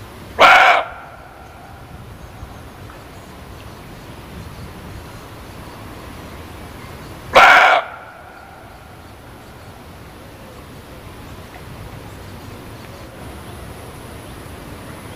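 Muntjac (barking deer) giving two short, loud barks about seven seconds apart, over steady background noise.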